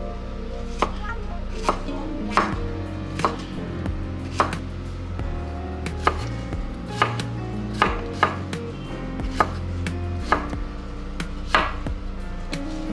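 Kitchen knife slicing a zucchini into rounds on a wooden cutting board: about a dozen sharp knife strikes against the board, roughly one a second at an uneven pace.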